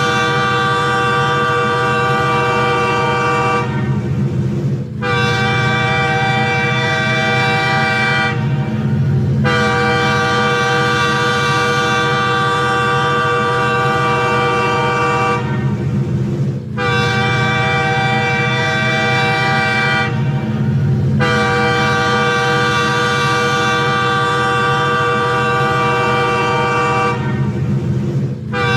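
Train horn sounding a series of long, loud blasts of a steady chord, broken by brief gaps about every four to six seconds, over a steady low rumble.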